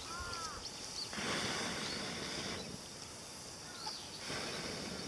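Hissing noise in two stretches, each about a second and a half long.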